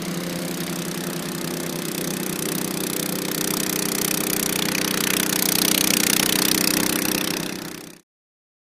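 1989 Honda HS55 snowblower engine running steadily, with a rushing hiss that grows louder over the middle. The sound fades out quickly near the end.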